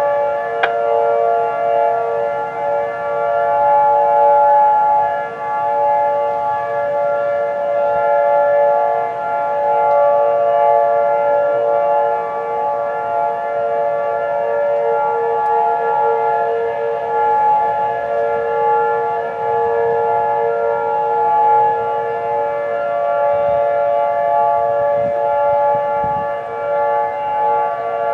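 Outdoor civil-defense warning sirens sounding a steady alert tone during a siren test. The tone is a held chord of several fixed pitches, and its level swells and dips every few seconds.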